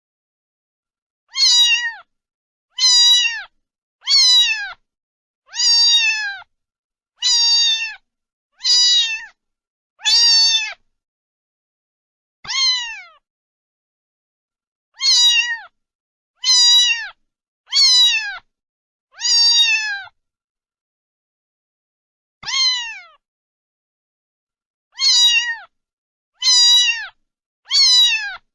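A cat meowing over and over: about sixteen short meows, each falling in pitch, mostly about a second and a half apart with a few longer pauses, and dead silence between them.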